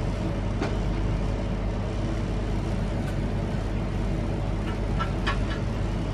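Steady low hum of room noise. Near the end come a few light clicks as a chrome metal heat-shield plate is set onto a motorcycle silencer.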